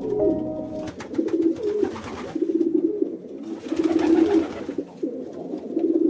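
Feral pigeons cooing: a run of low, rolling, warbling coos repeated every second or so.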